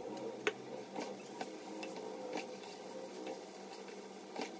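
Lapsi of coarse wheat flour and jaggery roasting in ghee in an aluminium kadai, with a steady low crackle, while a steel spatula stirs it, giving a few sharp clicks and scrapes against the pan.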